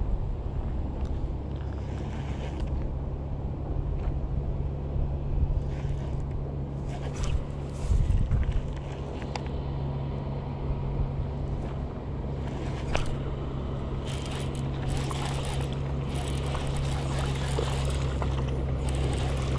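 Wind buffeting the microphone over a steady low hum, with scattered clicks from handling a baitcasting reel during the retrieve and a low thump about eight seconds in. Near the end, splashing from a hooked fish thrashing at the surface.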